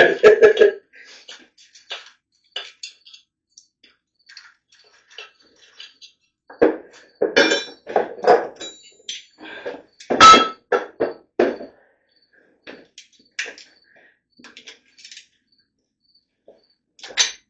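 Metal tools and engine parts clinking and knocking against each other during an engine teardown, in scattered short hits with a little ringing, and two louder flurries in the middle.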